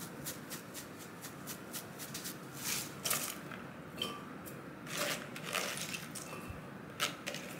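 Dried parsley shaken from a glass spice jar, a quick run of light ticks and taps, followed by crisp rustling as shredded raw cabbage is lifted by hand from a colander into a bowl.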